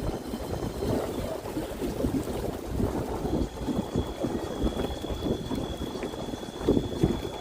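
Wind buffeting the microphone aboard a small motorboat, with water and the boat's motor underneath. A thin, steady high tone comes in about three seconds in.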